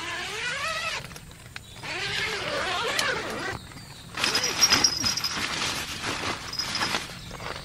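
Two short wordless pitched calls, voice-like, one at the start and one around two to three seconds in; then nylon tent fabric rustling and crinkling as a groundsheet is spread and tugged, the loudest part, from about four seconds in to seven.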